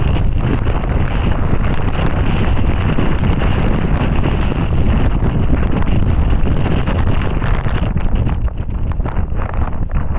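Strong blizzard wind buffeting the microphone: a loud, continuous, gusting rush heaviest in the low end, easing slightly near the end.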